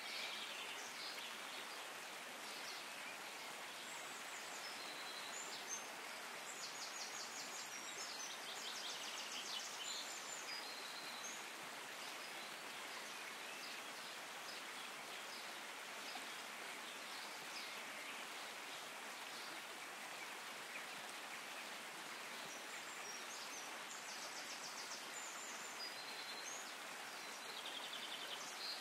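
Steady hiss of a shallow rocky stream running, with bursts of high chirping trills a few seconds in and again near the end.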